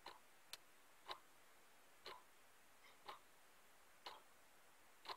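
Faint, evenly spaced ticks, about one a second, over near silence.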